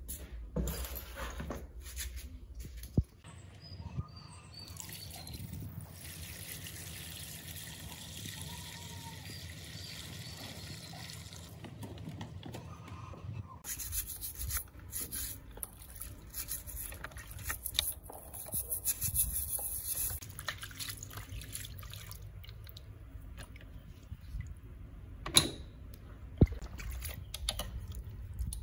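Pistons and connecting rods from a BMW engine being scrubbed with a sponge in a tray of dirty soapy water: water sloshing, splashing and dripping. A few sharp knocks of the metal parts come about three seconds in and twice near the end.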